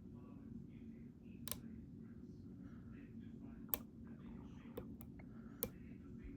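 Lock-picking tools working inside an EVVA ICS dimple lock as its sliders are picked: faint scraping with about five sharp, short clicks, the loudest a little past the middle, over a steady low hum.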